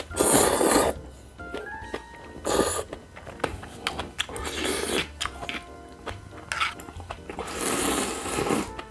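Instant ramen noodles being slurped loudly, four slurps: one right at the start, short ones around 2.5 and 5 seconds, and a long one near the end as the bowl is raised to the mouth. Small clicks of metal utensils come between.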